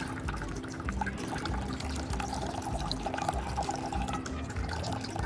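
Water pouring and trickling into a shallow plate used as a bird bath.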